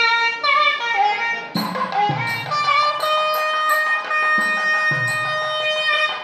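Nagaswaram music: a bright reed melody with sliding, ornamented notes and one long held note, over drum strokes.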